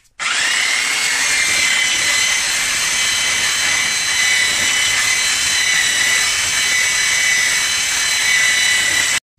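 Mac Allister handheld electric belt sander with a 40-grit belt grinding the crudely cut runner faces of a cast aluminium intake manifold flat. It spins up with a brief rising whine, runs steadily with a high whine over coarse grinding noise, and cuts off suddenly just before the end.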